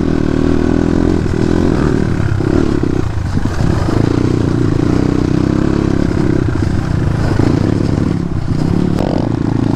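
Dirt bike engine running while being ridden, heard from on board. The note holds mostly steady, with a few brief dips as the throttle eases.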